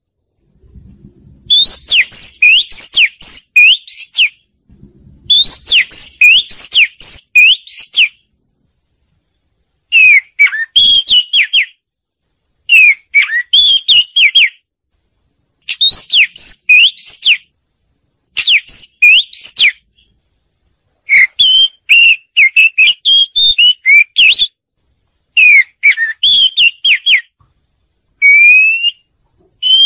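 Oriental magpie-robin song, a lure recording for bird trapping: loud whistled phrases of quickly rising and falling notes, each a second or two long, with short pauses between them.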